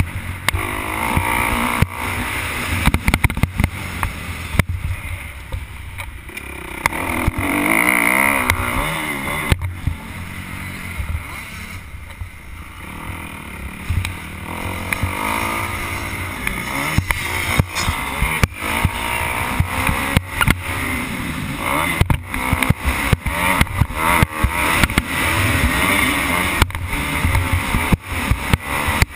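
Motocross bike engine heard from the rider's helmet, revving up and down as it accelerates and backs off, its pitch rising and falling every second or two. Frequent sharp knocks on the microphone, thickest in the second half.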